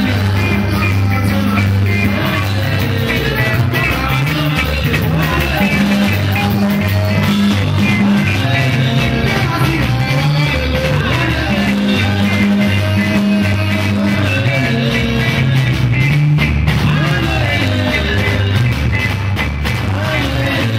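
Live band playing upbeat dance music: electric guitars, a deep moving bass line and a drum kit keep a steady driving beat under singing into microphones.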